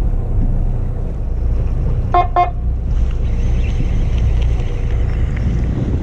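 Steady low rumble of a fishing boat's engine at idle, with two short, quick pitched beeps a little over two seconds in. From about three seconds a higher hiss of wind and water joins.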